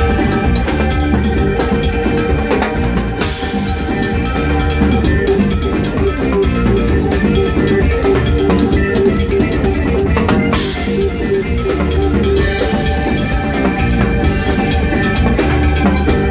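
Latin rock band playing live: a drum kit and timbales beat out a dense, fast rhythm over held instrumental tones, with no singing.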